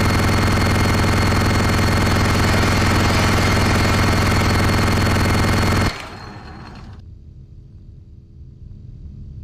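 Minigun sound effect: the rotary gun fires in one continuous rapid burst for about six seconds, over a steady high whine from the spinning barrels. The firing then cuts off, and a much fainter low whir trails on.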